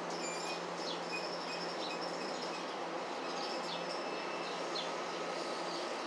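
NJ Transit bi-level commuter coaches rolling past, pulling into the station: a steady rolling rumble of wheels on rail with a low, even hum, and short high squeaks at intervals.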